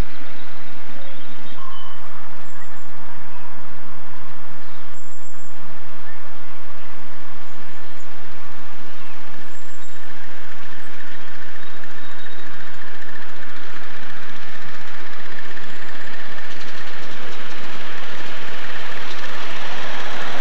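Miniature live-steam locomotive on a raised track approaching with passengers aboard. Its running and steam noise grows louder toward the end as it comes close.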